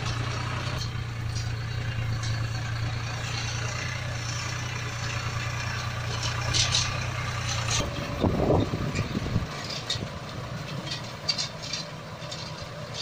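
Truck engine idling with a steady low hum; about eight seconds in the hum drops away and a short wavering sound and a few clicks follow.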